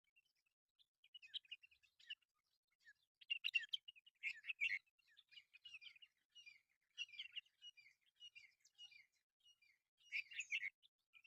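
Small birds chirping and twittering: rapid clusters of short, high calls with brief gaps between them.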